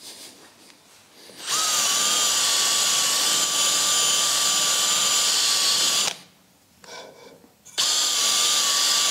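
Power drill with a wire brush scrubbing surface rust off a brake disc: a steady motor whine with the brush's hiss, running about four and a half seconds, stopping, then starting again about a second and a half later.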